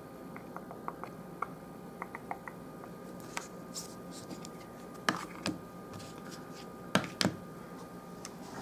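Rigid plastic trading-card holders being handled, slid and turned over on a wooden table: scattered light clicks, then a few sharper knocks in the second half.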